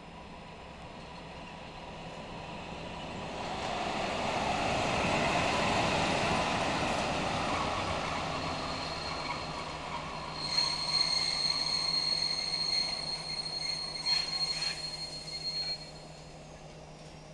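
Class 730 diesel-electric locomotive's engine running as it approaches and passes close by, loudest about five to six seconds in, then fading. From about ten seconds a steady high wheel squeal sets in with a few sharp clanks from the wheels on the rails, stopping suddenly about five seconds later.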